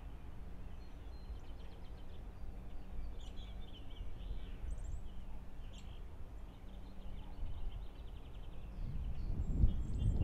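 Outdoor ambience: faint scattered bird chirps over a low steady rumble, with a louder low rush building near the end.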